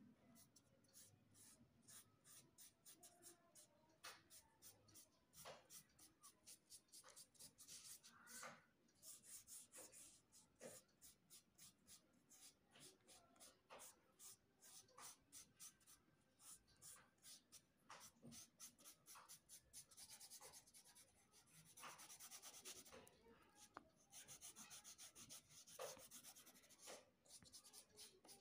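Faint scratching of a pastel crayon colouring on paper in quick, short back-and-forth strokes.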